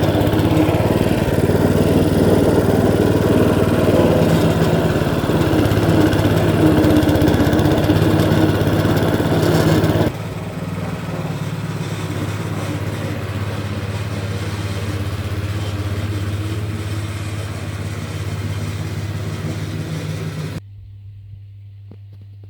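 Motorised lawn scarifier running steadily with a low engine-like hum and the rustle of its blades. It drops noticeably in level about ten seconds in, and near the end it cuts down to a faint low hum.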